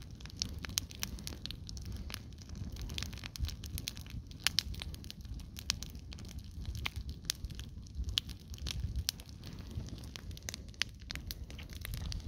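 A sneaker burning in an open fire, crackling and popping irregularly over a low steady rumble.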